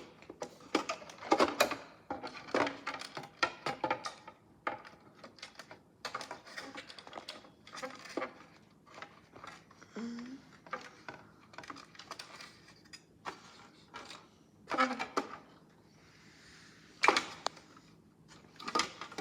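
Irregular clicks and knocks of hard plastic parts being handled and set down, from a toy washing machine's opened casing being worked on by hand.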